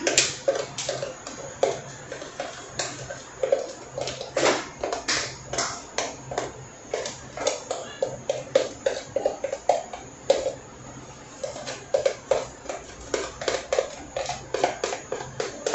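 Kitchen utensil knocking and clinking against a bowl or pan in quick, irregular strokes, two to four a second, each with a short ring.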